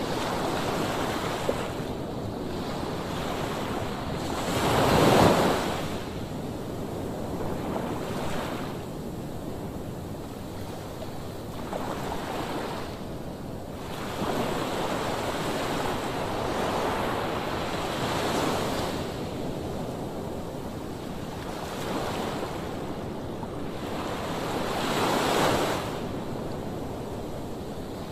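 Sea waves breaking and washing up a sandy shore, rising and falling in surges, the biggest about five seconds in and another near the end. Wind buffets the microphone throughout.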